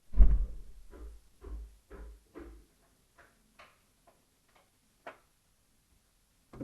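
A run of evenly spaced thuds, about two a second, that give way to lighter, sparser clicks and taps about three seconds in.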